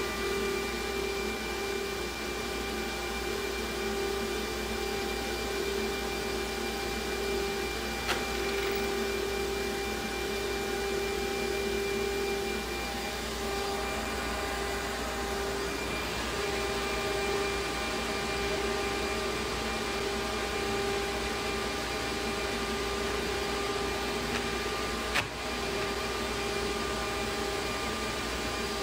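CNC router spindle running with a steady high whine over a rushing noise while the machine works at its automatic tool-change rack. Two sharp clicks, one about eight seconds in and one near the end.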